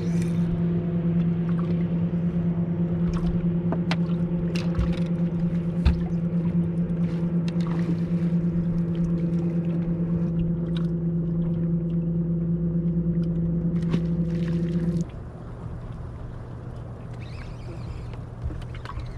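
Steady, even hum of a bass boat's electric trolling motor running, with scattered clicks and knocks over it; the hum cuts off suddenly about fifteen seconds in.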